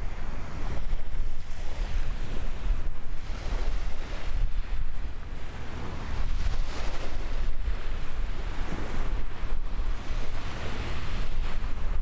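Wind buffeting the microphone: a gusty, uneven low rumble with a hiss of air over it.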